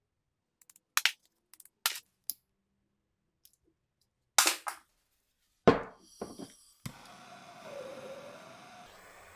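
Handheld gas torch: a scattering of sharp clicks and taps as it and a brazing rod are handled, then a sharp click about seven seconds in and a steady hiss of the lit torch burning.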